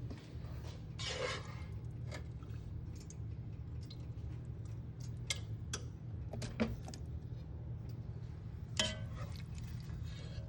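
Kitchen handling sounds: scattered light clicks and taps of containers and utensils, with a couple of short rattles, over a steady low hum.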